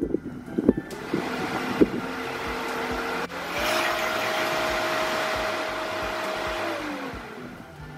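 Pentair IntelliFlo variable-speed pool pump motor changing speed as its keypad buttons are pressed: its whine steps up in pitch about a second in, steps higher again with louder rushing just after three seconds, holds, then winds back down near the end.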